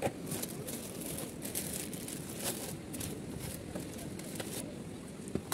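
Thin plastic bag rustling and crinkling as it is handled, in irregular crackly bursts over a low background rumble.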